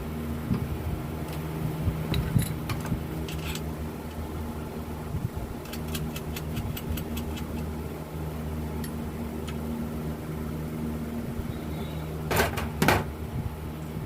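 A steady low machine hum, with scattered light clicks and two short, louder scraping sounds about twelve and a half and thirteen seconds in.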